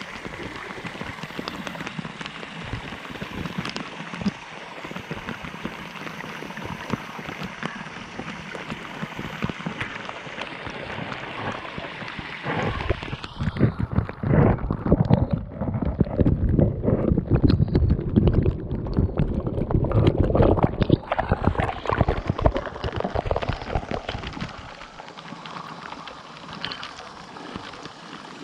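Small waterfall splashing over rocks, heard from very close. From about twelve seconds in until near the end, the water falls straight onto the microphone: the sound turns louder, muffled and irregular, then settles back to a steady splash.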